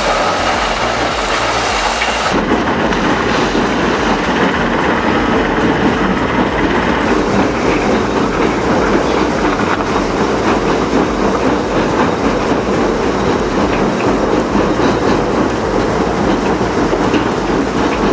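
Heavy earthmoving machinery running, with a steady engine drone and a dense metallic rattle and clatter throughout.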